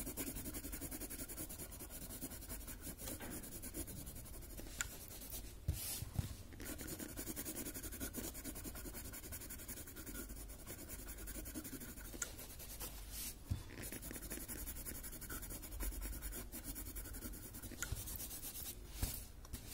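White charcoal pencil scratching and rubbing across a paper tile as highlights are drawn in, with a few brief knocks.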